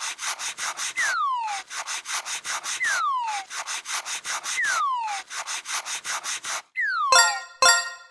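Cartoon sound effect: a falling whistle followed by a quick run of scratchy, rubbing strokes, repeated four times. Near the end come two bright ringing chimes.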